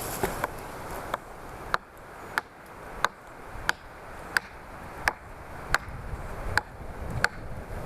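Steel knife spine striking a flint for sparks, a series of sharp clicks at an even pace of about three every two seconds, as a fire is being lit.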